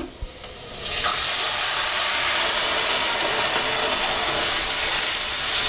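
Chicken, carrots and peas in their cooking water poured into a hot pan of oil-fried onions and spices, the liquid hissing and sizzling hard as it hits the hot oil. The steady hiss starts about a second in.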